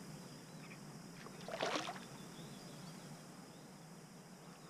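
Quiet calm-water ambience with a faint steady hiss while a hooked bass is reeled toward a kayak, broken by one short, louder noise about one and a half seconds in.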